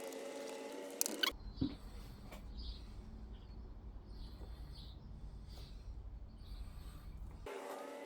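Short bird chirps, about a dozen, over a low steady rumble. This part cuts in abruptly with a couple of sharp clicks about a second in and cuts out near the end, where a steady hum with a few held tones sounds instead.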